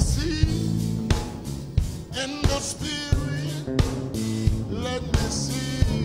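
Church band music with drum hits, a steady bass line and a sliding, wavering melody line over them.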